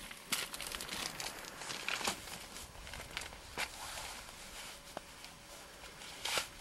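Scattered crunches and scrapes of snow and ice, coming irregularly a few times a second at most.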